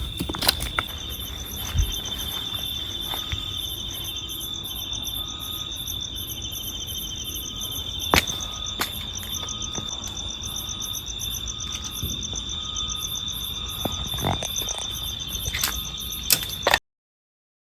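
Night chorus of crickets and other insects: a steady high-pitched trill under several fast pulsing trills, with a faint short note repeating about once a second and a few sharp knocks. It cuts off abruptly near the end.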